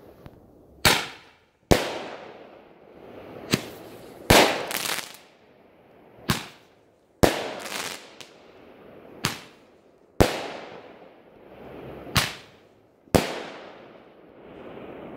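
A large 20 mm Roman candle firing shot after shot: about ten sharp bangs at uneven gaps of one to two seconds, each trailing off in a rolling echo.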